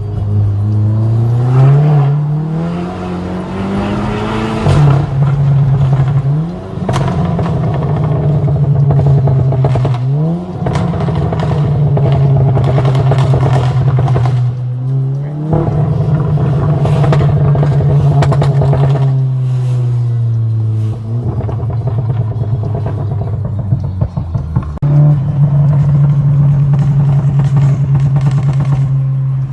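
Volkswagen Golf R's turbocharged four-cylinder engine being revved: its pitch climbs, holds high for several seconds and drops back, over and over.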